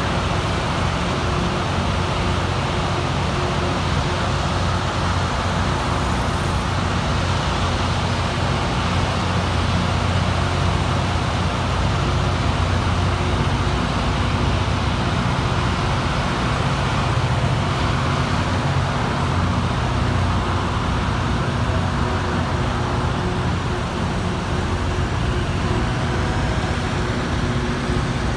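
Loram rail grinder train rolling slowly past, its engines and wheels making a steady rumble with a hiss over it.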